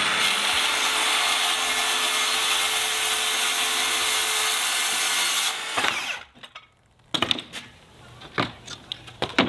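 DeWalt circular saw ripping a 4-inch strip off a sheet of plywood: a steady cutting noise over a steady motor tone for about five and a half seconds, then it cuts off. A few sharp knocks and clatters follow as the saw and the cut strip are handled.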